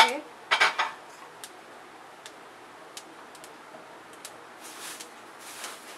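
Dry roasted poha flakes rustling and clicking in a large aluminium pot: a short rustle about half a second in, a few scattered, irregular light clicks, then soft rustles near the end.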